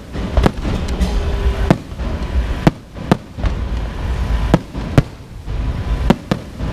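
Fireworks going off: about ten sharp bangs at irregular intervals, over a steady low rumble.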